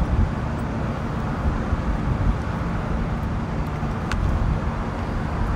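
Steady low outdoor rumble with no voices, and a single faint click about four seconds in.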